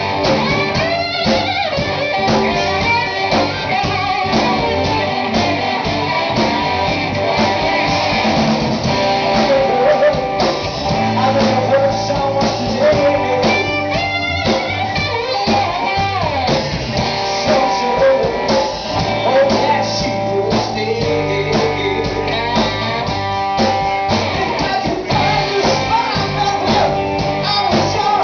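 Live blues-rock band playing: electric guitars over a drum kit, with a lead melody line that bends in pitch.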